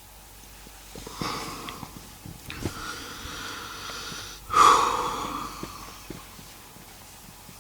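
A man snoring: three long snoring breaths, the loudest starting about four and a half seconds in.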